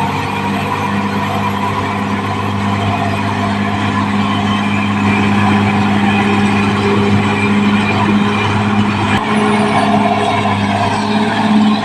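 Caterpillar D6R XL bulldozer's diesel engine running steadily under work.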